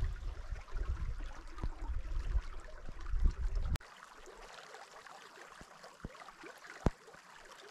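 Stream water running, over a low rumble for the first few seconds. Nearly four seconds in, the sound drops suddenly to a fainter, steady water sound with a few sharp clicks.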